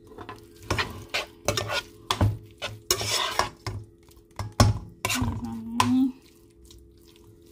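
Metal spoon stirring and scraping macaroni and shredded cheese in a cooking pot: irregular clinks and scrapes against the pot that stop about six seconds in.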